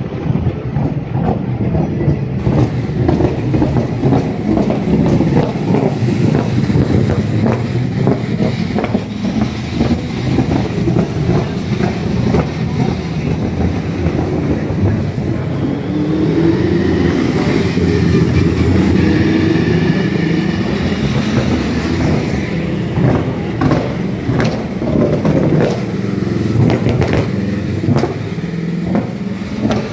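Supercars V8 race cars running at low speed along pit lane, their engines rumbling. Engine notes rise about halfway through and again near the end.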